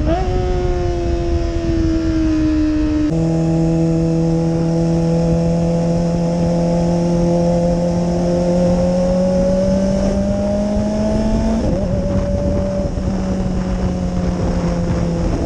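Kawasaki ZX-25R's 249 cc inline-four running through an Austin Racing exhaust, heard from the rider's seat at a steady cruise. The note eases down, changes abruptly about three seconds in, then climbs slowly for several seconds before settling a little lower near the end.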